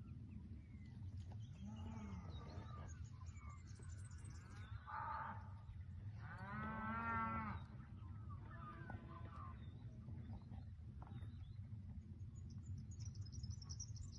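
Cattle mooing about four times, the longest and loudest call about seven seconds in, over steady low background noise.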